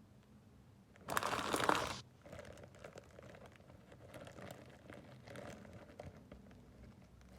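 A loud burst of crinkling, something like a wrapper or bag being handled, lasting about a second, starting a second in; after it, fainter rustling and small clicks.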